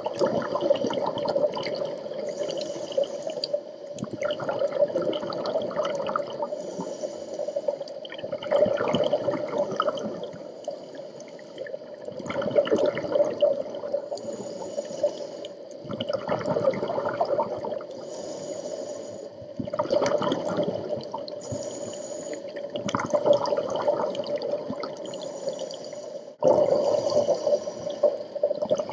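Scuba diver breathing through a regulator underwater: a short high hiss on each inhale, then a bubbling rush of exhaled bubbles, repeating about every four seconds.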